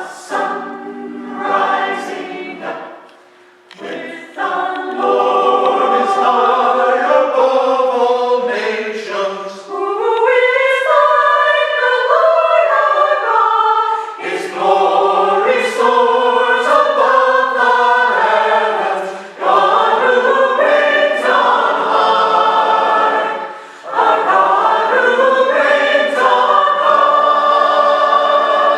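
Community choir singing in phrases, with brief pauses between them.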